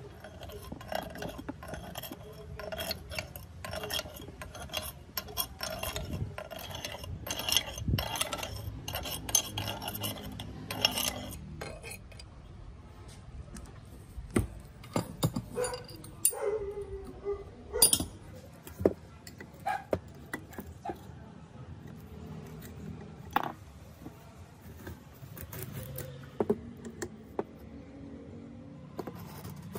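Hand tools on a rusty cast-iron gear housing: metal scraping and clinking for about the first twelve seconds, then scattered sharp metal clicks and clinks as a ring wrench loosens and removes the cover bolts.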